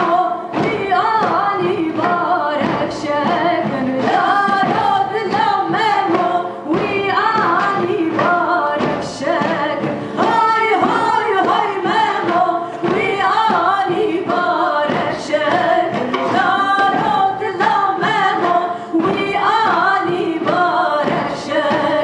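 Two women singing a folk song together as a duet into microphones, with a live band accompanying them.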